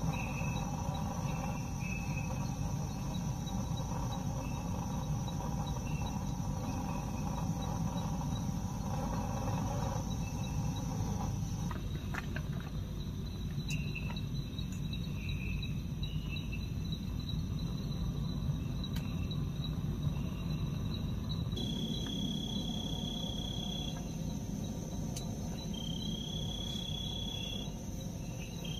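Crickets chirping in short high trills, with a steady insect whine above them, over a constant low rumble.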